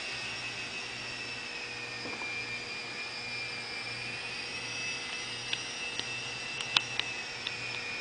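Small R/C model airplane's motor and propeller running steadily at a throttle set from the phone, a high whine that sags slightly in pitch, rises again and sags once more. A few sharp clicks come between about five and seven and a half seconds in.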